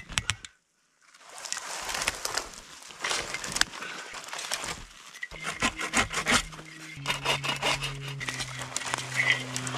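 Hand saw rasping through wood in repeated strokes, broken by a brief silence just under a second in. Low held background-music notes come in about halfway.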